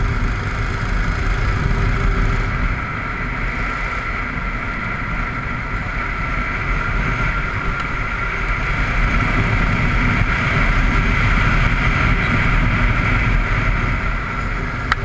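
Go-kart engine running steadily under way, with wind rushing over the onboard microphone. The engine eases off about three seconds in and slowly builds back up.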